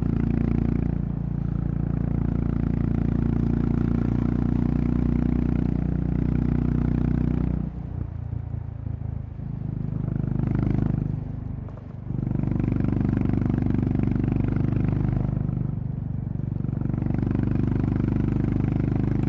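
Honda CB350RS's single-cylinder engine running at a steady cruise. The throttle eases off about eight seconds in and the engine dips again near twelve seconds, then it pulls steadily again.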